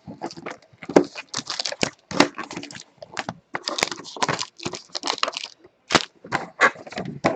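Trading card pack wrappers being handled, torn open and crinkled: a busy, irregular run of crackles and rustles.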